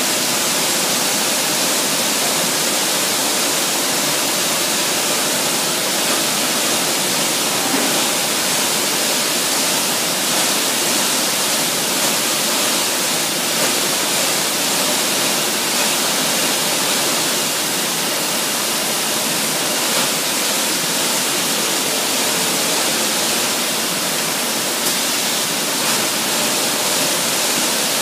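Steady, even hiss of machinery noise from a turntable pallet-wrapping line with roller conveyors, with a few faint ticks now and then.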